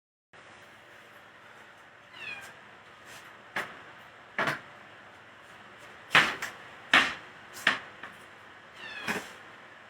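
A cat meowing twice, about two seconds in and again near the end, amid a series of sharp knocks or clatters, the loudest of them in the middle.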